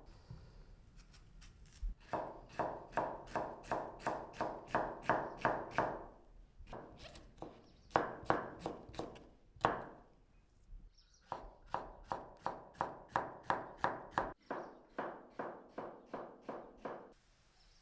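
Knife chopping food on a cutting board in steady strokes, about three a second, in three runs with short pauses between them.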